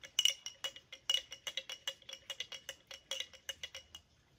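A spoon clinking quickly against the inside of a glass jar, about five ringing clinks a second, as pumpkin puree is stirred into a salt-and-dish-soap lysis solution. The clinking stops shortly before the end.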